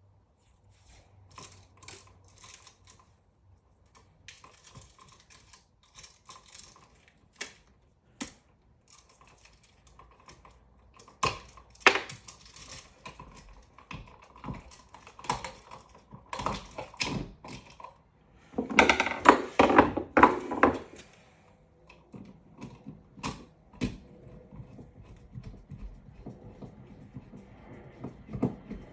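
Irregular clicks, taps and scraping of hand work on an electrical outlet and its box, with a denser run of rapid clicking about two-thirds of the way through.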